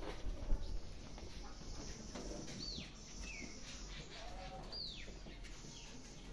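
A small bird calling with short whistles that slide downward, two clear ones a couple of seconds apart with softer chirps between. A low thump about half a second in, over a low rumbling background.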